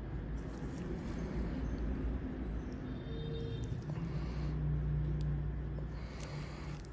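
Steady low background rumble with a low hum that grows stronger about halfway through.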